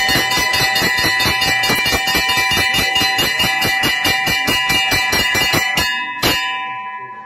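Temple bells rung rapidly for the aarti, about four to five clangs a second with a steady metallic ringing over them. The ringing stops about six seconds in with one last loud strike, then fades.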